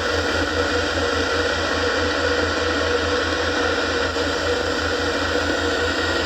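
Steady, loud hiss of radio static from an FM receiver, with a low pulsing buzz underneath.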